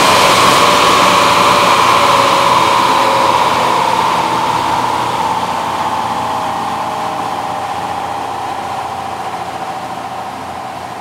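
2014 GMC Sierra pickup on a chassis dynamometer coasting down after a pull: the whine of the engine, tyres and rollers falls steadily in pitch and fades.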